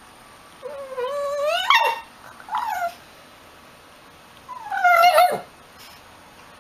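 Shiba Inu making three whining cries. The first is long and rises in pitch, the second is short and falls, and the third comes about two seconds later.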